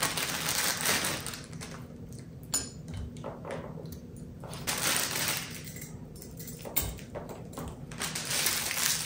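Plastic packaging crinkling as glass dispenser bottles and their pump tops are unwrapped and handled, in swells of rustling, with a couple of light knocks of glass on the countertop.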